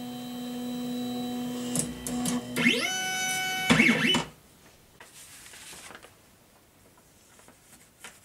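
Ultimaker Original Plus 3D printer's stepper motors whining as the print head and bed drive to the home position. The whine holds a steady pitch, sweeps up in pitch as another axis speeds up, ends in a brief clatter and cuts off about four seconds in.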